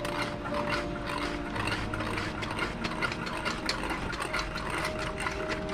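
Hand-cranked steel puran grinder being turned, its blade grinding cooked chana dal and jaggery against the perforated plate with a steady run of quick metallic clicks and scrapes.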